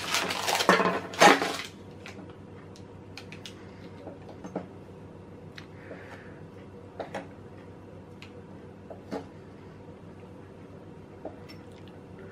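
Kitchen handling sounds while food is prepared on a tray: a loud rustle in the first second and a half, then scattered light clicks and taps of utensils and dishes over a faint steady hum.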